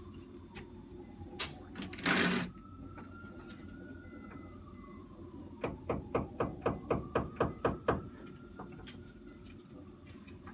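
Construction-site noise: a short loud burst about two seconds in, then a rapid run of about a dozen sharp knocks, roughly five a second, from about six to eight seconds in. Under it, a faint siren wails slowly up and down.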